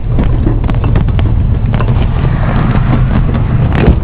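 A vehicle's engine running steadily, with scattered knocks and rattles over it and a louder knock at the very end.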